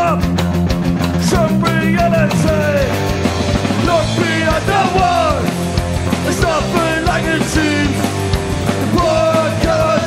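An Oi!/streetpunk band song playing: sung vocals over a loud rock band with driving drums.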